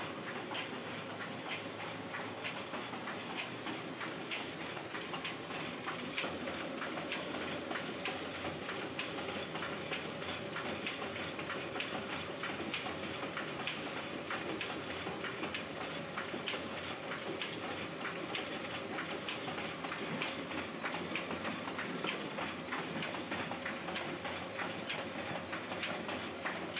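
Sheet-fed offset printing press running steadily: a continuous mechanical clatter with regular clicks a few times a second as the sheet feed cycles.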